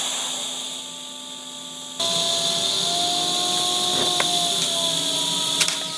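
TIG welding arc brazing silicon bronze filler onto steel, a steady hiss and buzz that strikes up right at the start and gets louder about two seconds in.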